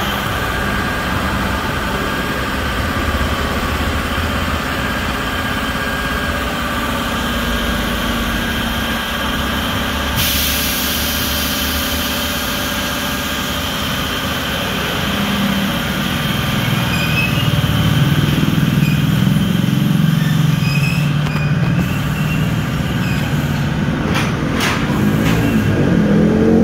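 Motor engines running steadily, growing louder and fuller after about fifteen seconds, with a few clicks near the end.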